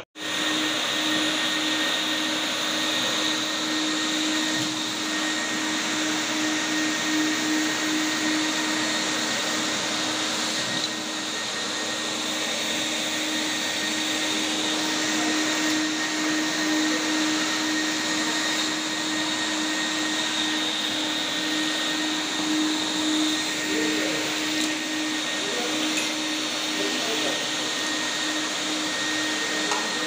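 Canister wet-and-dry vacuum cleaner running steadily with a constant motor hum, its hose sucking up debris from the floor.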